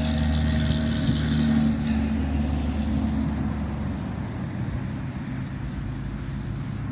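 A motor vehicle going past on a road: a low, steady engine hum that is loudest about a second and a half in and then slowly fades.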